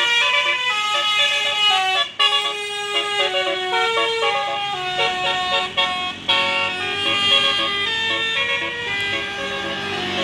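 Indonesian bus 'telolet' horn, a set of musical air horns, playing a tune of steady notes that jump in pitch every fraction of a second, with a couple of brief breaks.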